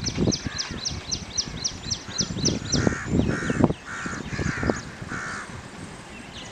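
A crow cawing about five times in steady succession from about three seconds in, after a rapid run of high chirps from a smaller bird. Irregular low thuds sound underneath.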